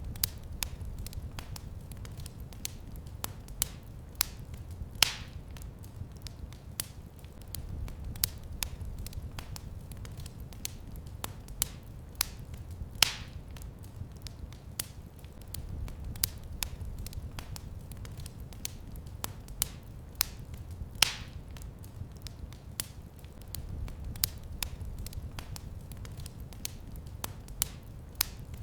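Wood fire crackling in a fireplace: irregular sharp snaps and clicks with a few louder pops, over a low rumble of the flames.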